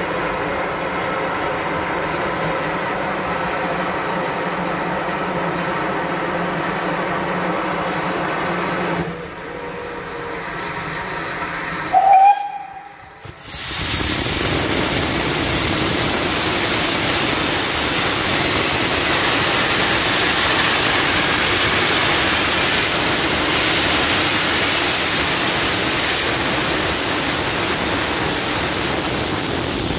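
A steady hum for the first nine seconds. After a brief loud blast and a short lull around twelve seconds in, a loud steady hiss of steam from the open cylinder drain cocks of a GWR Castle class 4-6-0 steam locomotive as it pulls away.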